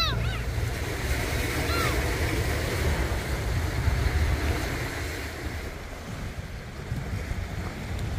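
Small sea waves washing onto a pebble beach, with wind rumbling on the microphone; a few short pitched calls sound in the first two seconds.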